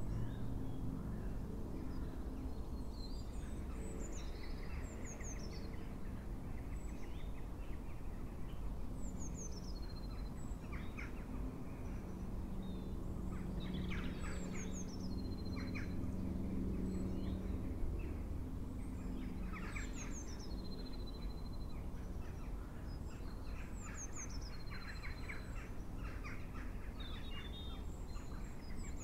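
Birdsong: a songbird repeats a short phrase of high falling notes ending in a trill every few seconds, with lower rapid chattering calls in between, over a steady low rumble.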